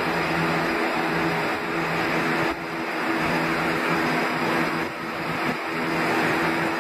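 Steady mechanical hum with a rushing hiss, dipping briefly a few times.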